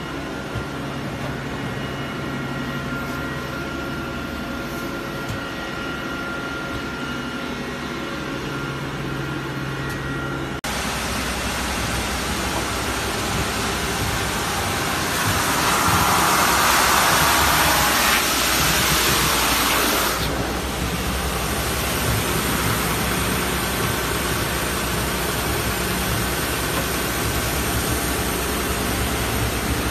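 Wide-belt planer sander running. At first there is a steady hum with held tones from the planing roller. About a third of the way in it changes abruptly to a louder, steady hiss once the R and RP sanding heads are running, which swells for about five seconds in the middle as a laminated wood board is fed through and sanded.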